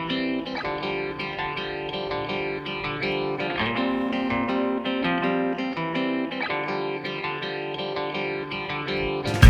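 Background music led by a plucked guitar, notes changing every fraction of a second.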